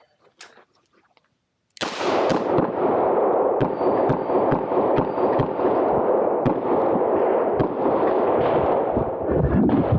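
Pistol shots in a string after the start signal: the first comes about two seconds in, then more follow roughly once a second, over a continuous loud rushing noise.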